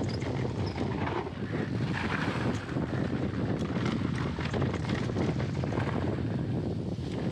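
Mountain bike descending a dry dirt trail at speed: knobby tyres rolling and crunching over loose dirt and gravel, with scattered clicks and knocks from the bike, and wind buffeting the microphone.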